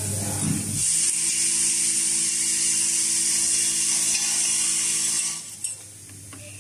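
CNC spring-making machine running a forming cycle: a steady mechanical whir with a strong hiss that starts a little under a second in and cuts off suddenly about five seconds in, followed by a single click.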